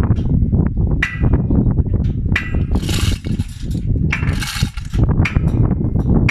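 Manual chain hoist being worked: its load chain clinks and rattles in a few sharp metallic strikes, with two longer rushing rattles near the middle, over a steady low rumble.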